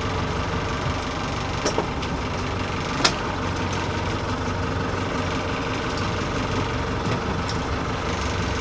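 A trolling boat's engine running steadily at low speed, with a steady hum under the wash of water and wind, and a couple of short clicks about two and three seconds in.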